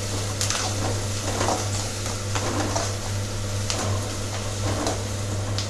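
Chopped onion, green chillies and curry leaves sizzling in groundnut oil in an aluminium kadai, with a spatula stirring and scraping against the pan about once a second.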